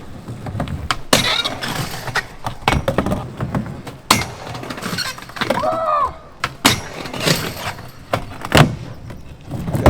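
Skateboard wheels rolling on concrete, with several sharp clacks and slams of the board landing and hitting obstacles. A short wavering cry or squeal comes about six seconds in.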